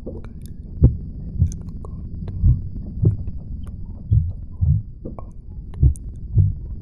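Slow heartbeat sound effect: low double thumps, each pair about every second and a half, over a low hum, with faint scattered clicks.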